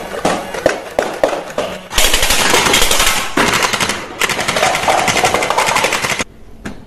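Toy blasters firing: a few separate shots in the first two seconds, then long rapid-fire bursts from an automatic gel ball blaster that stop about six seconds in.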